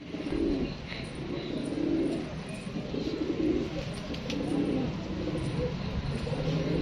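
Domestic pigeons (Irani fancy pigeons) cooing, a run of low coos about one a second.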